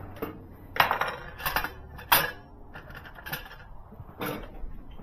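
Metal hand tools clinking as they are picked up and handled: about five sharp, separate metallic clinks, the loudest about a second in and again about two seconds in.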